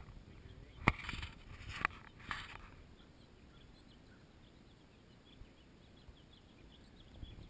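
A few sharp knocks with rustling in the first two to three seconds, then a faint, quiet outdoor background.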